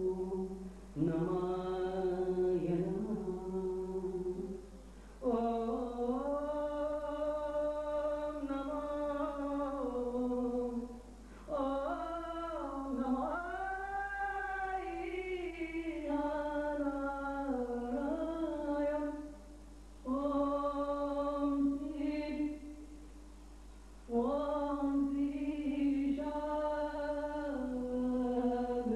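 Unaccompanied singing in slow, long-held melodic phrases, with brief pauses between the phrases.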